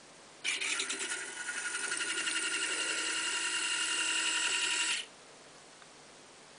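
Small N20 gear motor on the model excavator's boom whining as it drives its screw mechanism to move the arm. It starts suddenly about half a second in, runs steadily and gets slightly louder for about four and a half seconds, then cuts off sharply.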